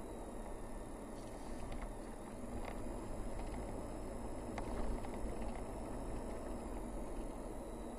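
A Toyota car driving along at low speed, heard from inside the cabin: steady tyre-and-engine road noise with a few faint clicks and rattles.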